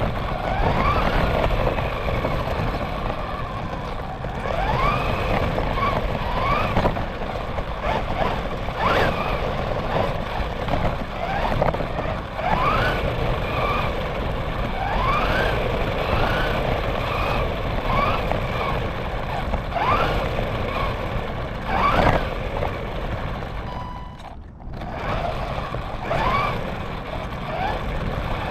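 A radio-controlled car's motor and drivetrain whining, rising in pitch again and again with repeated bursts of throttle, over rough noise from the tyres on pavement. The sound briefly drops away near the end, then picks up again.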